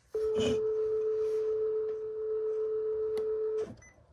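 A steady electronic tone from a GRE PSR-400 scanner's speaker, one held pitch that lasts about three and a half seconds and then cuts off suddenly, with a faint knock near the start.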